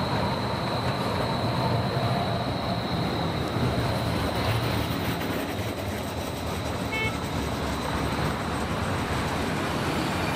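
Electric streetcar rolling past on street-running track, with a faint steady high whine over a low rumble, then city street traffic of cars and a pickup truck driving by.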